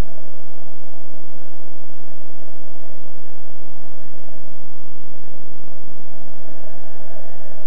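Stadium crowd noise, a steady, even din of many voices with no single shout standing out, over a steady low hum.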